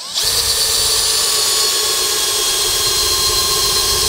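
Makita XPH14 18V brushless hammer drill in low gear (speed one) running steadily under load as it drives a 6-inch by 1/4-inch lag fastener into wood, its motor whine holding a steady pitch without bogging down.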